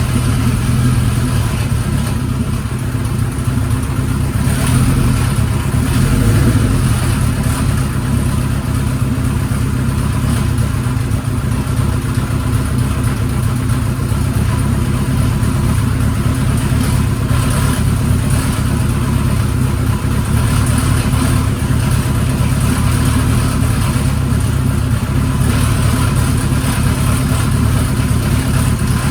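Kawasaki Z1's air-cooled inline-four engine running steadily at idle, with a loud abnormal mechanical noise in its sound.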